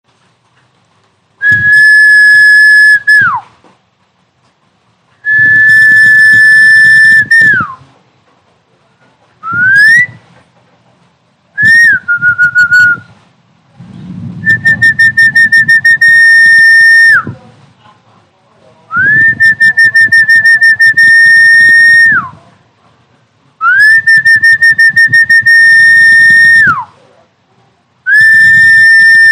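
Snakehead fish-calling sound played back as an mp3: a series of loud whistle-like calls on one high held note, each lasting one to three seconds and most dropping in pitch at the end. One call glides upward instead, and a rapid low fluttering buzz runs beneath several of them.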